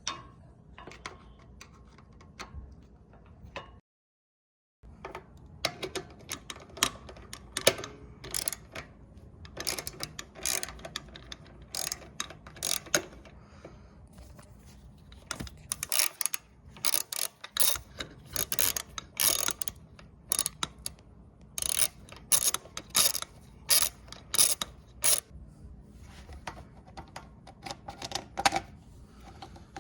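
Irregular sharp clicks and clatter of small parts and hand tools being handled, with the sound cutting out completely for about a second near the start.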